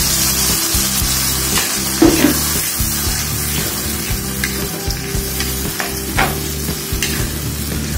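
Blended chili-and-tomato spice paste sizzling in hot oil in a nonstick wok while a metal spatula stirs it, scraping and tapping the pan now and then. The sharpest clatter comes about two seconds in.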